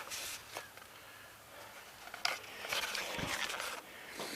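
Faint rustling and shuffling handling noises, with a sharp click a little over two seconds in and a short low thud about a second later.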